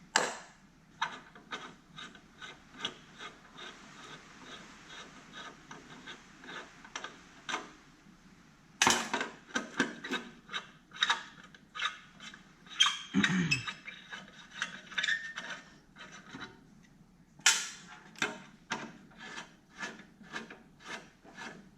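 Hand ratchet with an extension and 10 mm socket clicking as bolts are spun out, in runs of rapid clicks. A few louder knocks come about 9, 13 and 17 seconds in.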